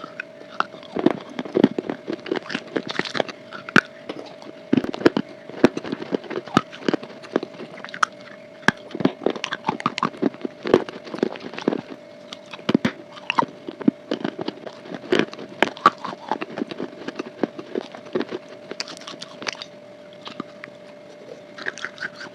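Close-up crunching and chewing as big bites are taken from a crunchy bar, with a rapid, irregular crackle of crunches. A steady hum runs underneath.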